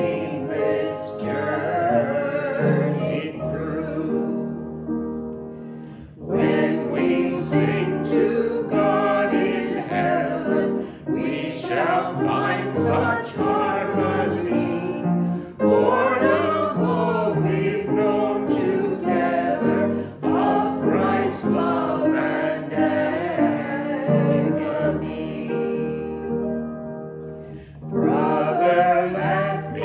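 A small group of men's and women's voices singing a hymn to upright piano accompaniment, with short pauses between sung lines about five seconds in and again near the end.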